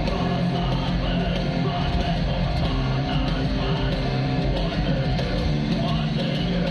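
Heavy metal band playing live at concert volume, with distorted electric guitars and a full drum kit.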